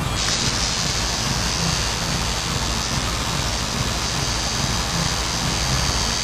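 Tattoo machine buzzing steadily while it works ink into skin.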